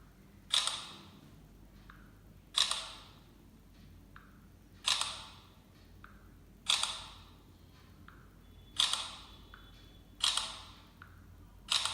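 Phone camera shutter sound, seven times at roughly two-second intervals, as photos are taken one after another. Each shutter has a short fading tail, and a faint click comes just before it.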